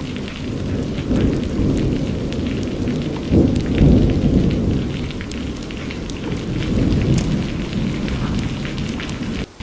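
Steady rain pattering, with a long roll of thunder rumbling underneath. The thunder swells a second in, is loudest three to four seconds in, then slowly fades. The sound drops out for a moment near the end.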